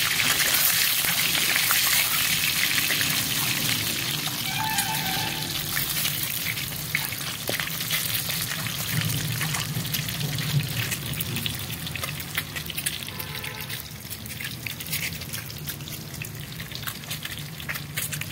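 Hard-boiled eggs frying in hot oil in a steel kadhai: a steady sizzle with fine spattering crackles, loudest at the start and slowly dying down.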